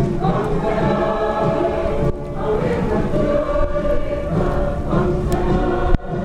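Choir singing with music, many voices together in a steady song.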